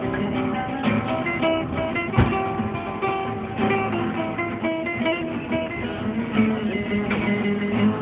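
Two acoustic guitars playing together, strummed chords with picked melody notes over them. A single sharp thump about two seconds in.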